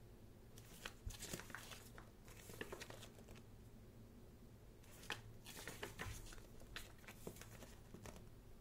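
Pages of a thick photobook being turned by hand: two bouts of faint paper rustling and crackling, one starting about half a second in and the other about five seconds in.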